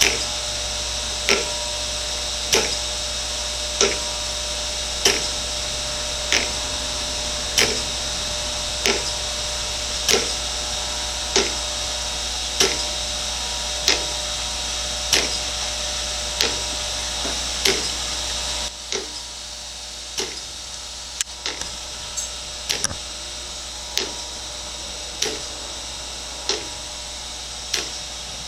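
Chevalier 2A618 hydraulic surface grinder running on a spark-out pass, a steady hum with a sharp click about every second and a quarter. About 19 seconds in, part of the machine's low hum cuts off and it gets quieter, while the regular clicks go on.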